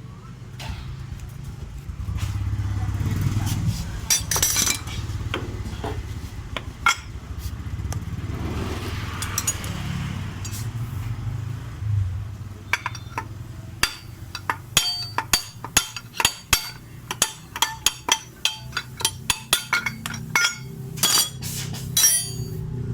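Steel tool tapping and knocking on metal to drive the worn bearing out of a Honda Vario 125's CVT pulley housing. There are a few hits at first, then a run of sharp ringing metallic knocks about two a second through the second half, over a low steady hum.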